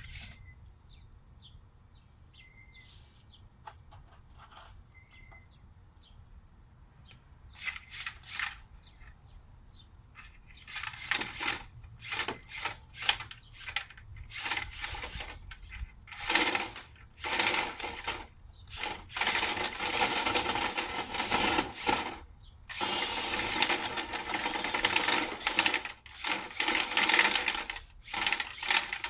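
Dryer vent cleaning gear working a vent duct: rapid mechanical rattling and scraping. It is faint at first, comes in short bursts from several seconds in, and runs almost continuously and louder in the second half.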